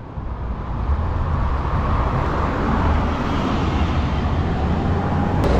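Road traffic noise: a passing vehicle swells and fades over a steady low rumble, with one sharp click near the end.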